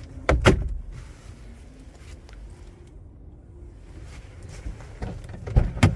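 Clicks and knocks from handling a car's hard plastic interior: a pair of sharp knocks about half a second in and another pair near the end, with faint rustling movement between.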